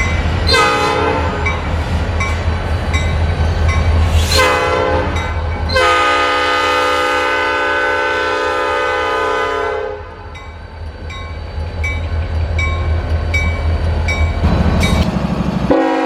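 Diesel locomotive sounding its air horn over the low rumble of its engine: two short blasts, then a long blast of about four seconds, and the horn sounds again near the end. A railroad crossing bell dings steadily underneath.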